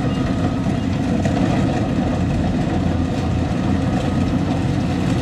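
Rice combine harvester's diesel engine running steadily and loudly, an even mechanical drone with no change in pitch.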